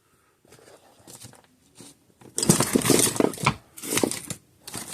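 A screw being driven into the plastic case of a Parmak Magnum 12 electric fence charger, in three noisy bursts of turning that start about halfway through, after a little faint handling.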